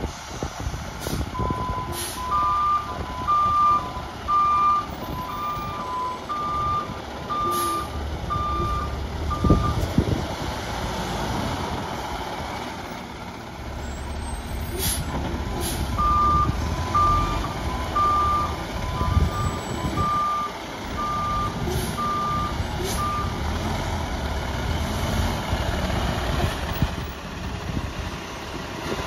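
Garbage truck's backup alarm beeping about once a second in two runs of several seconds, over the diesel engine running as the truck reverses and maneuvers. There are a few short hisses and a sharp thump partway through.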